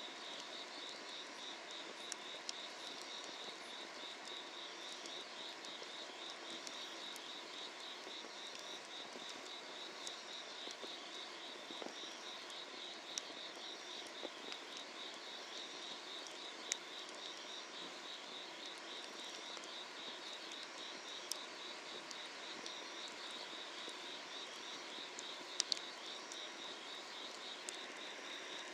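A chorus of summer-night insects chirping in a steady, fast pulsing trill, with a higher chirp repeating about every second and a half. Over it come scattered sharp crackles and pops from firewood burning under an iron cauldron, with a double pop near the end.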